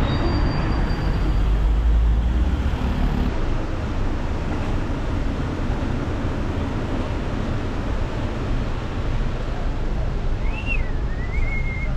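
City street traffic running steadily, a continuous wash of passing cars. Near the end a brief wavering high tone rises and falls over it.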